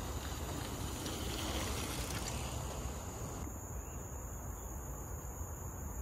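Woodland ambience: insects keep up a steady high-pitched drone over a low rumble of wind on the microphone.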